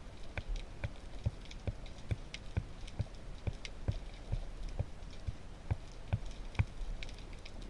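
Underwater sound: a steady crackling hiss with a regular sharp click repeating a little over twice a second.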